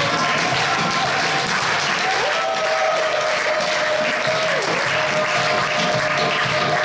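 An audience applauding, with a steady high held tone over the clapping that dips briefly in pitch twice.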